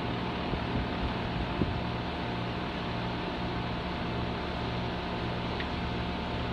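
Compressor running steadily: a continuous mechanical hum with a constant high tone over it.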